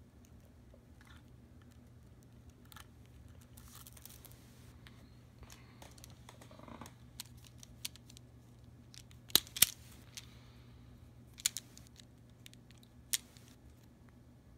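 Vise-Grip self-adjusting wire stripper clamping and stripping thin insulated wire: soft rustling of wire being handled, then several sharp clicks in the second half, two close together followed by two more spaced apart, as the jaws snap shut and tear off the insulation.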